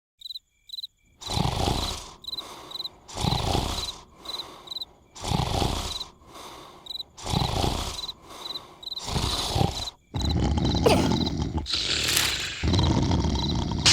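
Exaggerated cartoon snoring: loud, rough snores about every two seconds. They become nearly continuous and louder for the last few seconds. Crickets chirp steadily underneath.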